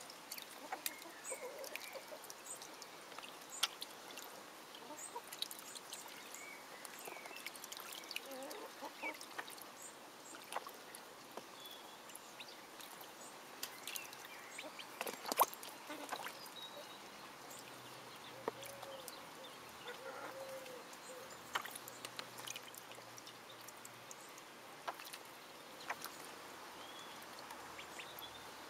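Miniature Silver Appleyard ducklings swimming: many small splashes and clicks in the water, with scattered short, soft calls.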